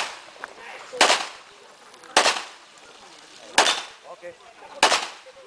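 Pistol shots: four single shots fired at a slow, steady pace, about one and a quarter seconds apart, each a sharp crack with a short echo tail.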